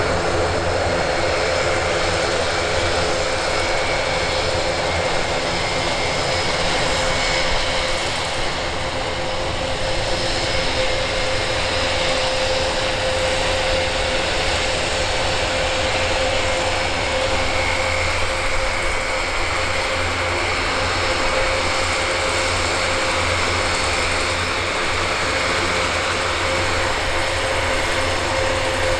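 Airbus A400M's four TP400 turboprop engines running steadily as the aircraft taxis: an even drone of engines and propellers with a steady high whine on top.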